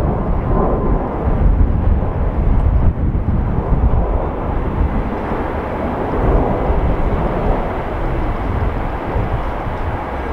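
Airbus A340-600 airliner climbing out after takeoff, the steady low rumble of its four Rolls-Royce Trent 500 jet engines, easing slightly over the last few seconds.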